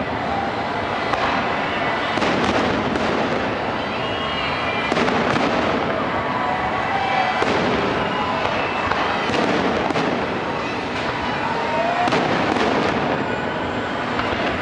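Large fireworks display: a dense, unbroken stream of shell bursts and crackles, with no pause between them.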